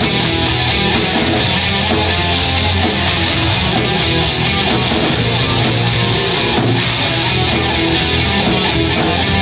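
A live metal band playing at a steady, loud level: electric guitars and a drum kit.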